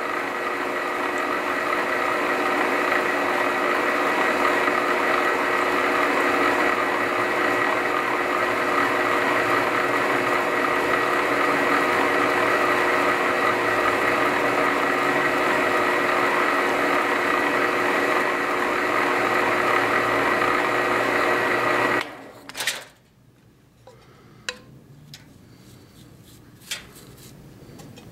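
Lathe running steadily with a whine, spinning a hammer handle while thread is wound onto it. It is switched off and stops abruptly about 22 seconds in, followed by a few light clicks.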